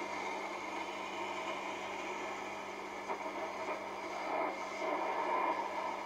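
Hammarlund HQ-100 vacuum-tube communications receiver giving shortwave band noise and static from its speaker while the main tuning knob is turned slowly, with a faint steady low hum underneath.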